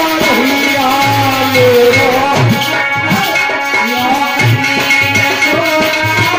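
Loud Indian folk-style music with a repeating drum beat and a wavering melody, played through a PA sound system.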